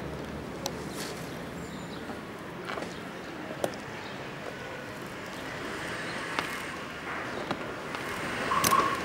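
Steady street noise with a few sharp clicks and knocks as an old brown suitcase is handled and its catch is worked by hand. A brief louder tone sounds near the end.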